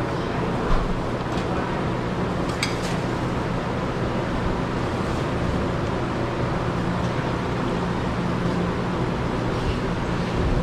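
Steady low mechanical hum with a rushing noise over it, like a running motor or fan, and one short metallic clink about two and a half seconds in.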